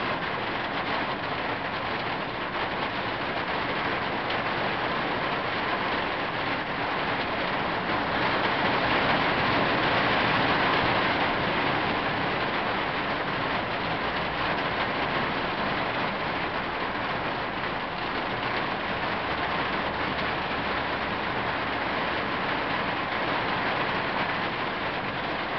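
Steady rain falling on a tin roof, a dense, even hiss. It grows a little louder about a third of the way in, then eases back.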